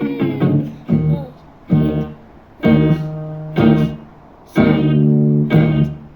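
Instrumental music: pitched chords struck about once a second, each one fading before the next.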